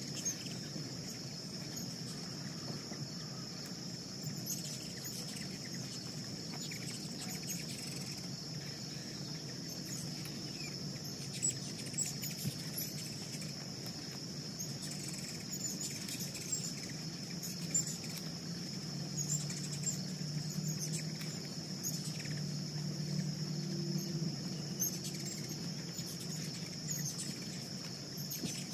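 Steady high-pitched insect drone, with many short, high chips and squeaks from ruby-throated hummingbirds crowding and chasing at a nectar feeder. Under it runs a low hum that grows a little stronger past the middle.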